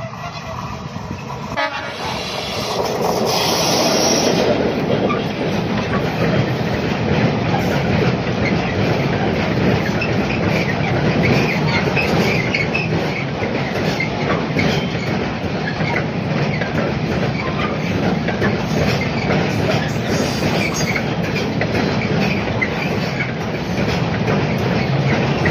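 Freight train of container flat wagons hauled by an electric locomotive, passing close by. A steady rumble of wheels on rail builds over the first few seconds as the train arrives, then holds as the wagons roll past.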